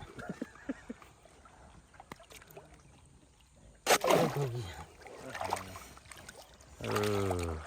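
Men's voices calling out, with a sudden loud noise about four seconds in and a long held shout near the end.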